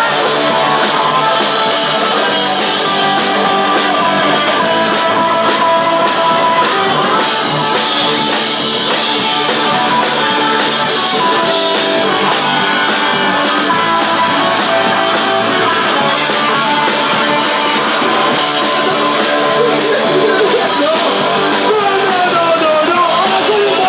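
Punk rock band playing live at full volume, with electric guitars to the fore over the rest of the band.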